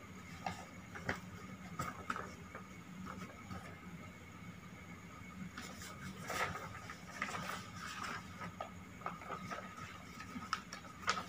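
Sheets of paper rustling and crackling as they are handled, folded and opened out, in short irregular crackles that are busiest a little past the middle and again just before the end. A faint steady hum runs underneath.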